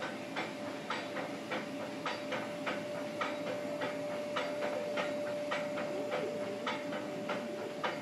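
Nilgiri Mountain Railway toy train running, its wheels clicking and knocking irregularly, about two to three times a second, over a steady thin tone.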